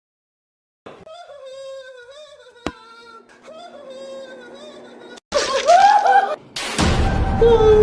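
A high, wavering voice sings a slow tune softly, with a single click partway through. About five seconds in it turns to loud wailing over music.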